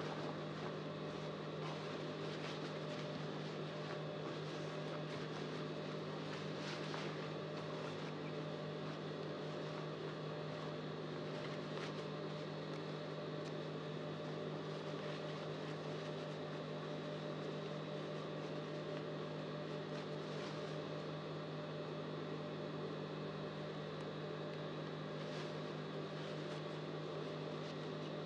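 A steady low electrical hum, with faint brief rustles of thin raincoat fabric being handled now and then.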